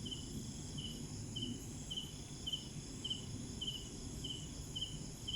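Night insects: a cricket chirps in short, even pulses about three every two seconds, over a steady high-pitched drone of other insects.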